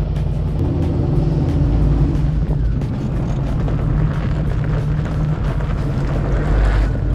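Off-road recovery rig's engine running with a steady low rumble as it crawls on a rocky slope, a little rougher and busier for a few seconds past the middle.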